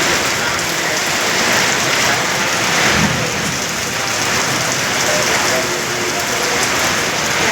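Heavy rain pouring steadily onto hard surfaces, with a brief swell about three seconds in.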